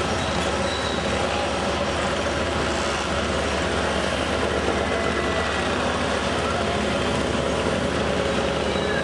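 Steady engine and vehicle noise on a ferry's car deck as a crowd of mopeds moves off, with a constant low rumble and voices faint underneath.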